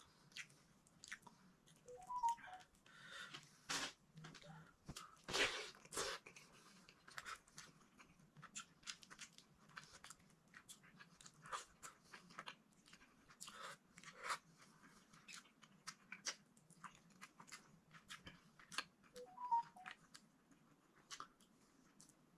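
A person chewing close to the microphone while eating okra and eggplant: irregular wet crunches, bites and mouth smacks, the loudest a few seconds in.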